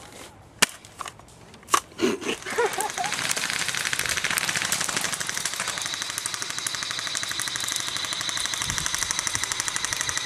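Two sharp single snaps, then from about two seconds in a long, unbroken burst of airsoft gun fire on full auto: a rapid, even rattle of shots.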